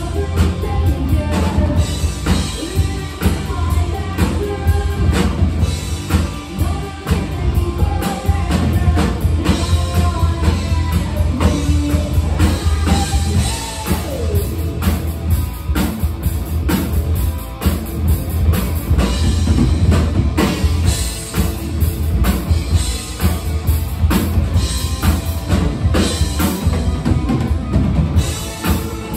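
Live rock band playing: electric guitar, bass guitar and drum kit, with a steady drum beat.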